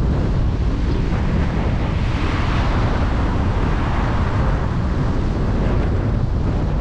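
Steady wind buffeting and rumbling on the microphone of a moving camera, with road and traffic noise underneath. It swells briefly about two seconds in.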